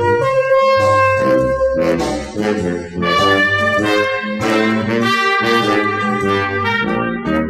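Brass-led orchestral easy-listening music from a 1960 LP, with trombones and trumpets playing chords and melody, breaking off just before the end.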